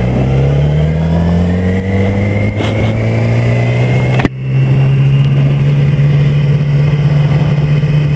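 2007 Yamaha YZF-R6's inline-four motorcycle engine accelerating, its pitch rising for about four seconds. After an abrupt break it runs at a steady speed.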